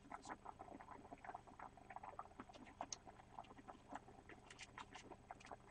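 Faint, irregular small clicks and crackles of a kitchen knife slicing through fresh red chili peppers, several a second, over a low steady hum.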